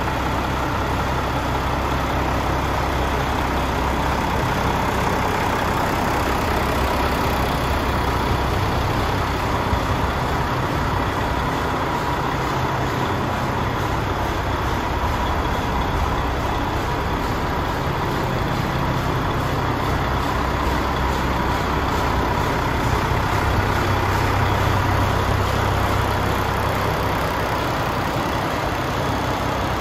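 DAF XF105 tractor unit's Paccar MX 460 bhp turbocharged straight-six diesel idling steadily, a little louder about three-quarters of the way through.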